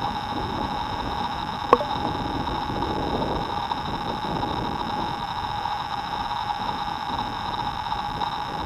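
Steady whine of a small drone's rotors over a hiss, with one short falling chirp about two seconds in.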